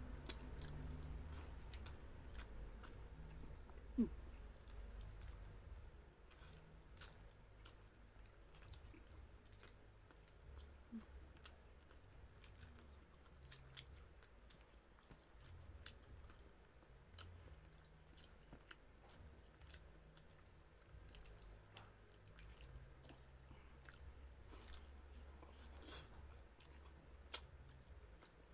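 Faint close-miked chewing and mouth sounds of people eating grilled chicken inasal, with scattered small clicks and smacks and one sharper click about four seconds in.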